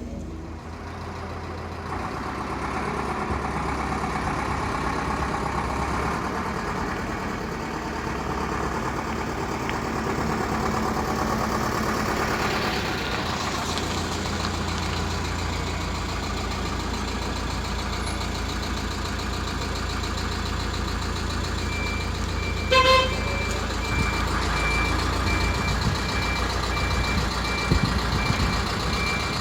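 Large vehicle engine, likely a vintage bus, running steadily, with a short horn toot about three-quarters of the way through. A reversing alarm beeps about twice a second over the last several seconds.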